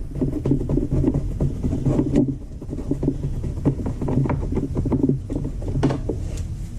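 Irregular small knocks and clicks, like objects being handled, over a steady low hum.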